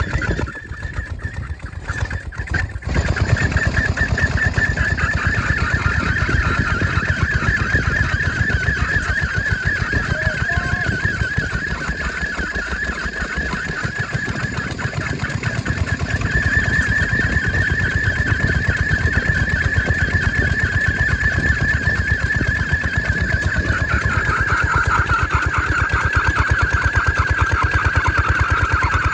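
Kubota diesel engine running hard, belt-driving a troublesome Amanco stationary engine to turn it over, with a rapid even beat and a steady high whine over it. The sound is uneven and quieter for the first few seconds, then settles into a steady run.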